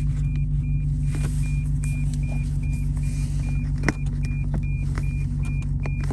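Lexus GS F's V8 idling low and steady, heard inside the cabin, under a high in-car warning beep repeating about two or three times a second, the chime of the gear selector in reverse. A few sharp plastic clicks, the loudest about four seconds in, as the shifter trim piece is pressed back into place.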